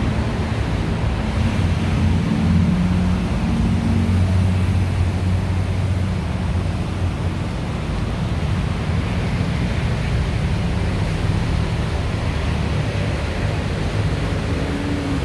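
Steady rushing street noise with a vehicle engine's low hum, strongest in the first half and fading after about six seconds.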